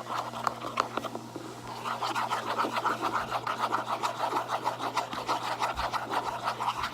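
A utensil stirring a wet glue and shaving-cream slime mix in a bowl, scraping the sides in fast, repeated strokes that become quick and even from about two seconds in. The mix is still watery.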